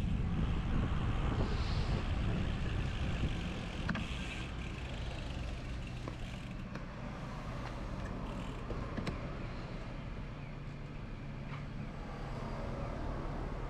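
Wind rumbling on the microphone of a moving road bike, with road and traffic noise, heaviest in the first three seconds and then easing. A few light knocks come through, around four seconds in and again near nine seconds.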